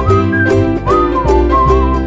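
Background music: a whistled tune gliding over plucked string chords and a bass line.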